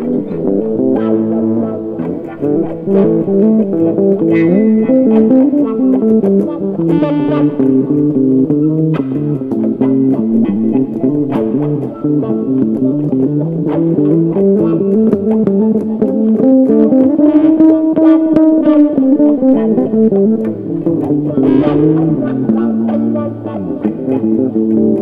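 Long-scale Warwick electric bass playing a blues solo in A, its notes bent up and back down, with one long bend that rises and falls about two-thirds of the way through. Behind it, an electric guitar vamps in A through a wah pedal.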